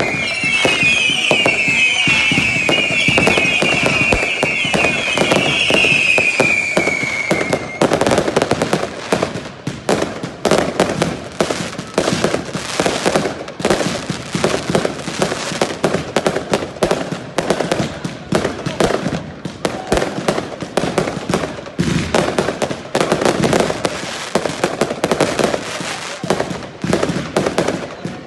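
Consumer fireworks firing in a dense finale barrage. For the first eight seconds, repeated whistles sound over a stream of bangs and crackles. The whistles then stop, and a rapid, continuous volley of bangs and crackling follows.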